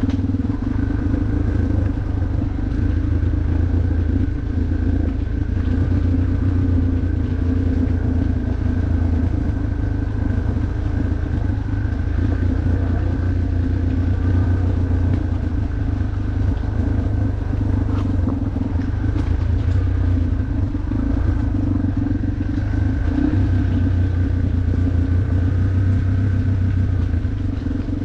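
Off-road motorcycle engine running at a fairly steady speed, with no big revs.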